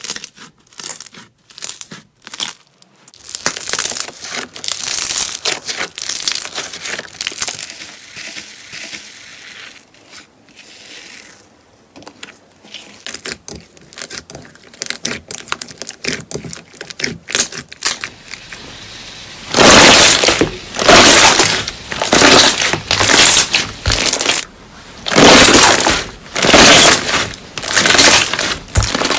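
Slime being pressed and squeezed with crackling, popping and crunching. Short clicks come first, then dense crackling, and from about two-thirds through, loud squishes repeat about once a second.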